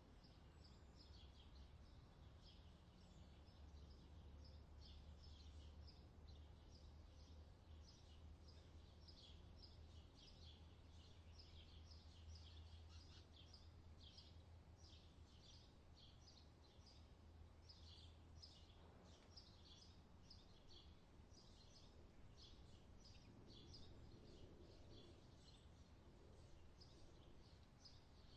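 Faint outdoor summer ambience: a steady run of quick, high-pitched chirps repeating a few times a second, over a low hum.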